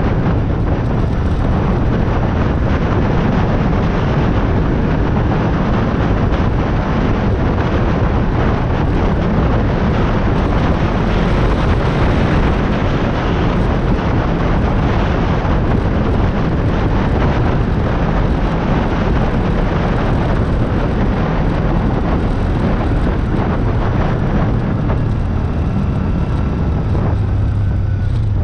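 Steady, loud rush of wind buffeting the microphone of a motorcycle riding at speed, with the motorcycle's engine running underneath.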